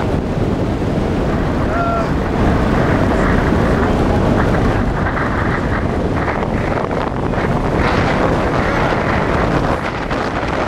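Wind rushing hard over the microphone of a camera mounted on a hang glider in flight: a loud, steady buffeting roar of airflow.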